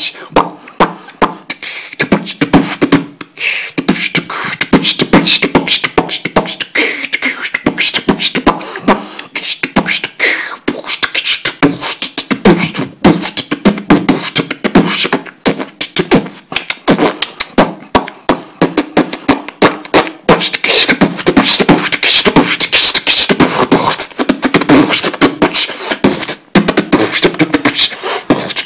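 Beatboxing: a man making a fast, continuous run of percussive mouth sounds, clicks and snare-like hits many times a second, mixed with voiced notes.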